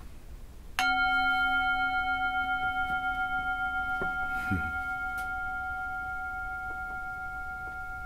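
A bell struck once about a second in, then left to ring with a slow, wavering decay. Its lowest tone fades out before the higher ones.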